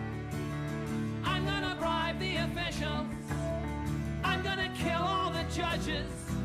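Background song playing: a steady beat under a wavering sung melody.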